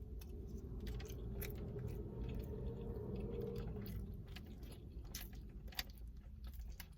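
A person chewing a mouthful of food close to the microphone, with scattered wet mouth clicks and smacks.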